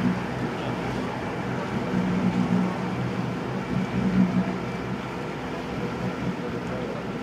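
Engine of a small river passenger boat running steadily, heard on board: a constant drone of several steady tones with a low hum that swells and fades every second or so.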